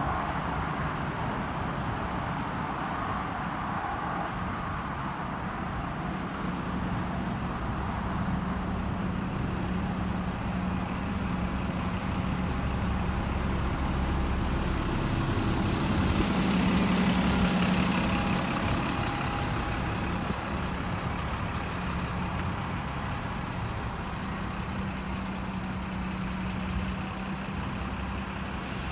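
Double-decker bus engine running with a steady low drone, loudest about halfway through as the bus is closest.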